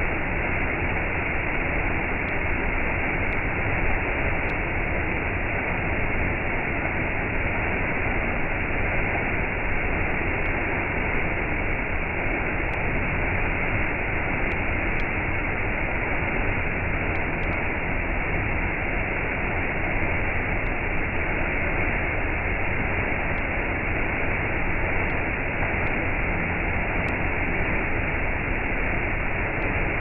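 Small waterfall pouring over a rock ledge into a shallow pool: a steady, unbroken rush of falling water, dull-sounding with no high hiss.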